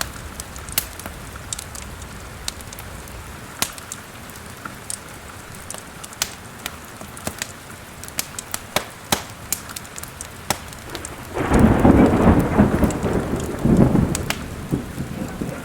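Fireplace fire crackling with sharp pops over steady rain, and a loud roll of thunder about eleven seconds in that lasts about three seconds.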